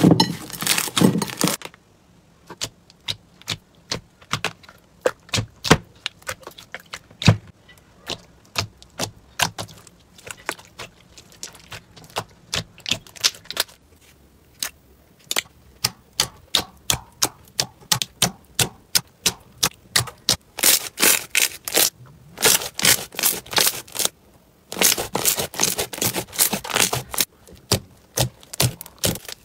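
Slime being squeezed, poked and kneaded by hand, giving rapid strings of sharp clicks and pops. The clicking thins out for a stretch, then comes thick and fast again, with a brief pause near the end.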